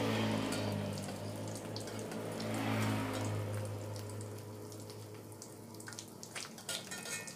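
Egg frying in hot oil in a steel wok, with crackles that grow denser in the second half, while a metal spatula scrapes the wok as the egg is lifted and turned. A low steady hum underneath fades out about halfway.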